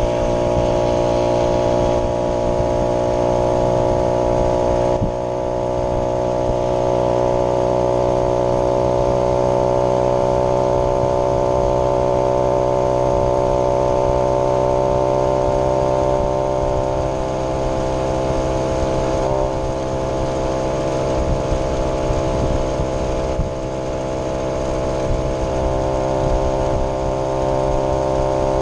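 Vintage moped's small two-stroke engine running at a steady speed under way, its pitch holding nearly level with small rises and dips. The level dips briefly about five seconds in and again near the end.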